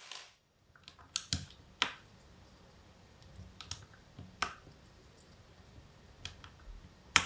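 A few scattered keystrokes on a mechanical keyboard fitted with burned-in, freshly lubed KTT Mint switches: single sharp clicks at irregular gaps, a second or more apart, the loudest near the end.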